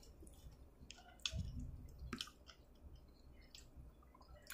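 Faint, scattered clicks and small taps of hands working at shellfish and food on a plate while eating, with a soft low thump a little over a second in.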